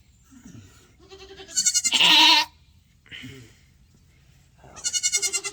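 Doe goat in labour bleating loudly in pain as she pushes out a kid: two long, wavering cries, with a faint shorter one between them.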